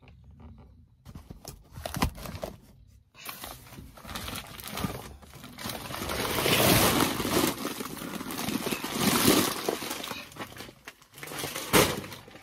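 Woven feed sacks being handled and dragged across a van's load floor: a few knocks at first, then a long scraping, rustling drag that swells twice, and a sharp knock near the end.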